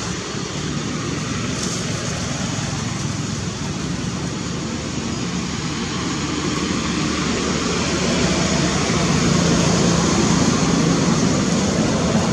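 Steady rumbling background noise with a faint low hum, growing a little louder over the second half.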